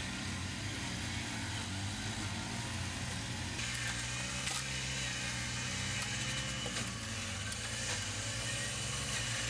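Steady low hum of a running motor, under a hiss that gets brighter about three and a half seconds in.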